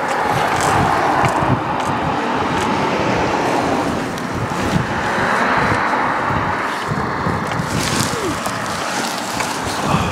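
Gusty wind blowing across the microphone: a steady rushing noise with irregular low rumbling buffets.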